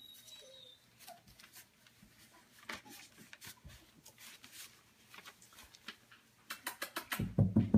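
Puppies shuffling on newspaper: faint scattered rustles and clicks, with a brief thin high squeak at the very start. Near the end a much louder sound with a steady low pitch and a fast pulsing beat comes in.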